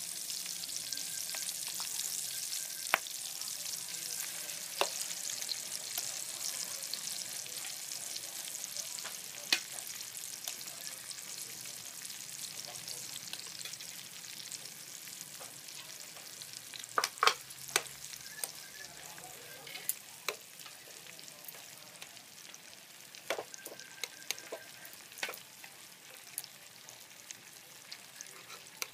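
Onion wedges sizzling in oil in a frying pan, the hiss slowly dying down, while sliced raw beef is tipped in and stirred with chopsticks. Scattered sharp clicks and taps of utensils against the pan, a quick cluster of them about 17 seconds in.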